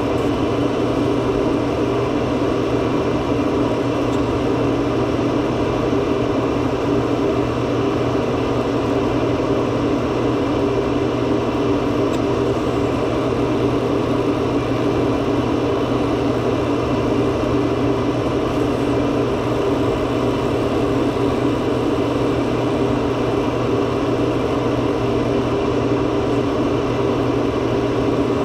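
Steady machine hum, even and unbroken, with several fixed tones and no rhythm.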